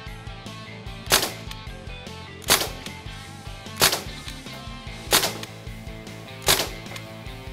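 Crosman DPMS SBR CO2 blowback BB rifle firing steel BBs in semi-auto: five sharp single shots, evenly spaced about one every 1.3 seconds.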